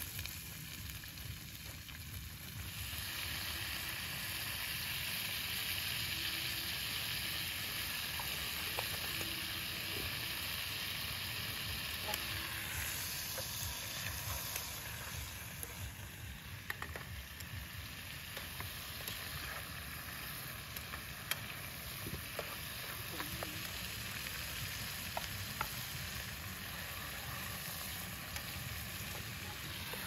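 Steady sizzling hiss of cooking on a portable gas stove, swelling a couple of seconds in and easing off about halfway, with small clicks of a utensil stirring in the pan.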